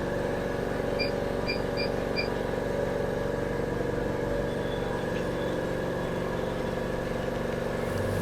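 Display flex bonding machine with its motor running, a steady hum, during the final ACF bonding of a phone display strip. Four short high beeps sound about a second in.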